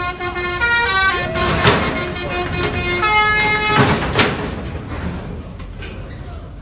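Multi-tone telolet bus horn playing a tune, its notes stepping up and down, stopping about four seconds in.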